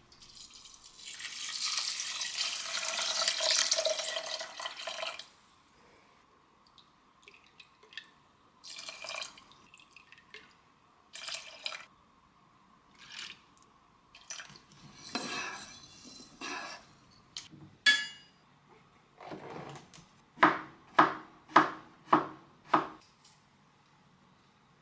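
Kitchen preparation sounds: water runs from a tap for about four seconds, then scattered clinks and handling noises, and near the end a run of about five sharp, evenly spaced knocks, the loudest sounds in the stretch.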